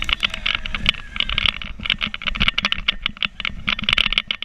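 Rapid, irregular crackling and clicking of water spray and splashes striking the camera during a fast towed ride on an inflatable water sofa.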